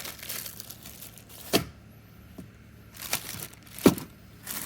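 Plastic packaging crinkling and rustling as a boxed tool kit is unpacked, with a few sharp clicks and knocks from handling, the loudest about four seconds in.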